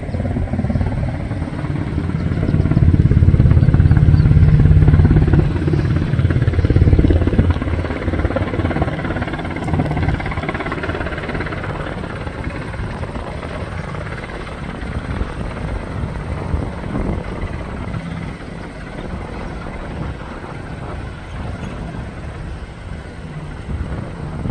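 NH90 military helicopter flying low and hovering, its main rotor beating rapidly over the steady engine noise. It is loudest a few seconds in, then eases off.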